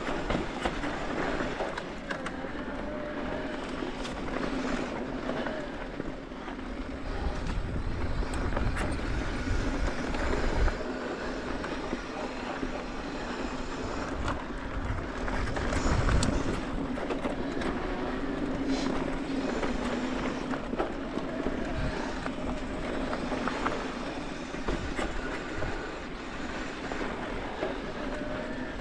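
Steady vehicle running noise: a low hum and rumble with scattered rattles and clicks.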